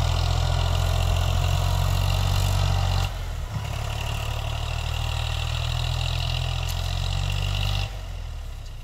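Eicher 548 tractor's air-cooled three-cylinder diesel engine running steadily. The sound drops abruptly about three seconds in and again near the end.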